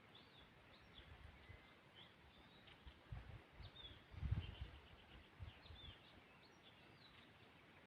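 Faint songbirds chirping with short, quick notes, some sliding up or down. A low, uneven rumble comes and goes between about one and six seconds in, loudest a little past four seconds.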